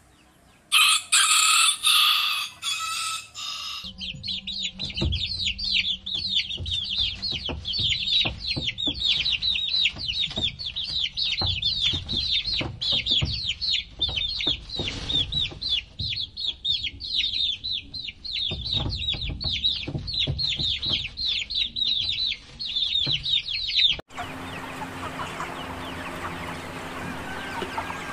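A rooster crows once. About four seconds in, chicks take over, peeping fast and continuously in many high falling cheeps. Near the end this gives way to the steadier clucking and murmur of a crowded chicken house.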